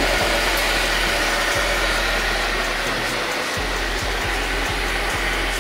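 Single-serve blender's motor running steadily as it blends a pink strawberry mixture in its cup.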